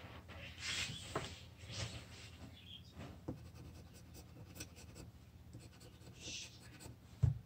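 A lottery scratch ticket being scraped with a hard edge: short scratching strokes with pauses and faint clicks between them, then a single low thump near the end.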